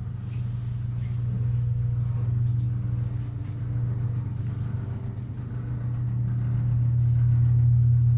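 Otis hydraulic elevator car travelling upward, a steady low hum that swells toward the end of the ride, with the car a little rattly.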